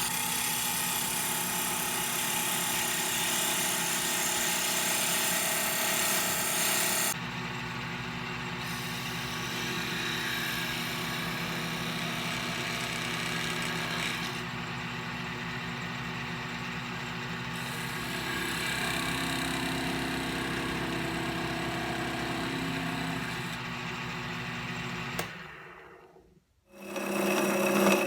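Rockler Excelsior 5-speed mini lathe running steadily while a handle is turned on it, with the tool cutting into the spinning wood. The sound changes abruptly a few times, drops to near silence about 26 seconds in, then comes back louder.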